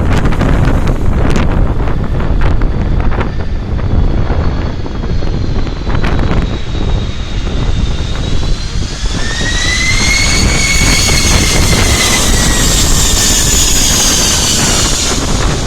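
Jet airliner passing close on its landing approach, its engine whine swelling about two-thirds of the way through, then bending down and fading. Heavy wind buffets the microphone throughout.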